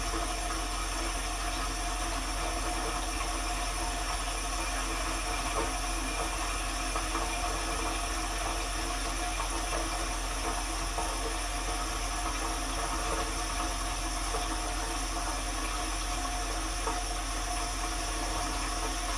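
Dishwasher running, heard from inside the tub: a steady low hum with an even hiss over it.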